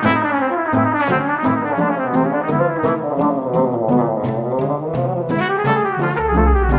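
Background music led by brass, with a walking bass line and a steady beat.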